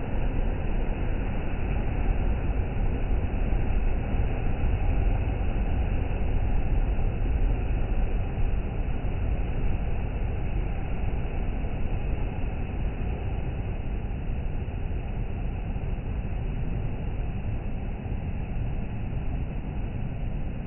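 Sea waves rushing steadily with no distinct breaks, heaviest in the low end.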